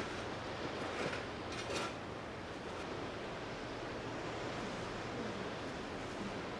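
Steady rushing outdoor background noise, with two short sharp sounds about one second and just under two seconds in.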